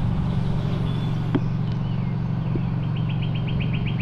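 Steady low motor-like hum, with a bird's rapid, even chirping trill starting about three seconds in.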